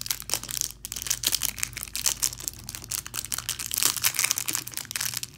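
Clear plastic packaging bag crinkling and crackling as fingers work it open, a dense run of small sharp crackles with a short lull about a second in.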